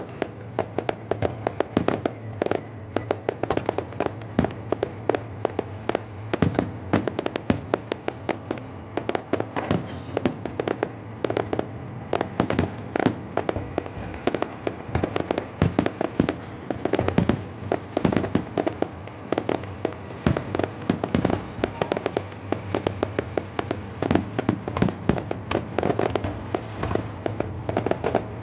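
Fireworks display going off in a dense, continuous barrage of bangs and crackles, many reports a second, with a steady low hum underneath.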